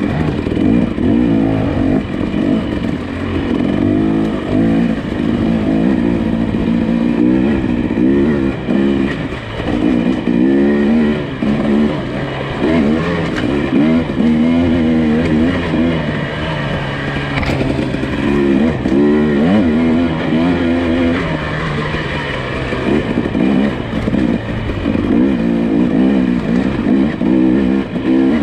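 Nissan Pathfinder SUV engine working on an off-road trail, the engine note rising and falling over and over as the throttle is worked.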